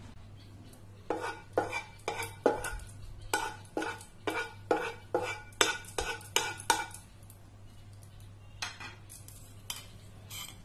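Metal spoon beating eggs in a stainless-steel bowl: a run of rhythmic clinks against the bowl, about two or three a second, for some six seconds, then a few scattered taps near the end.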